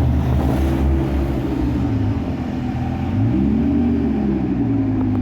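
Lamborghini Gallardo's V10 engine running steadily with a strong rumble, given one short rev about three seconds in that rises in pitch and settles back.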